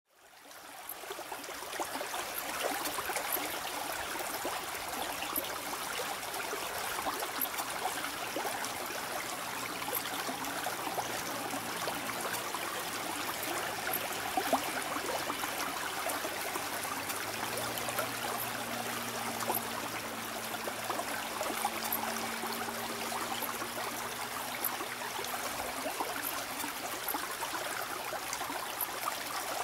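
Steady rushing ambient noise across an airfield, fading in at the start, with a faint low hum joining about seventeen seconds in and dropping away near twenty-six seconds.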